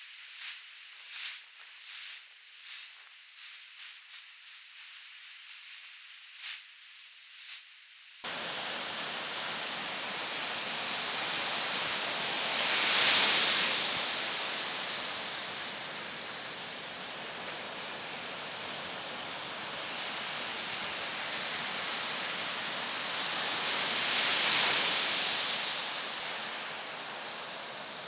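Steady rush of typhoon-swell surf breaking, with two waves swelling loud and fading about 13 and 24 seconds in. Before this, for the first eight seconds, thin high-pitched hissing comes in short pulses.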